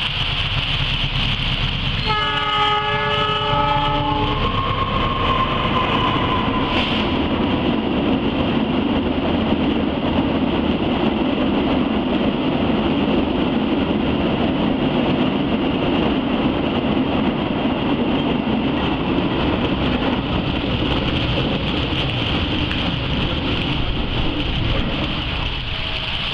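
Freight train's diesel locomotive sounding its multi-tone air horn once for about two seconds, followed by the steady rumble of the cement freight train rolling past, mixed with heavy rain.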